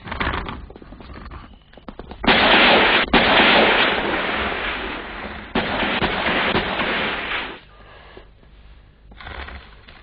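Automatic gunfire in two long bursts: the first starts suddenly about two seconds in and runs for about three seconds, and the second starts abruptly just past halfway and stops about two seconds later.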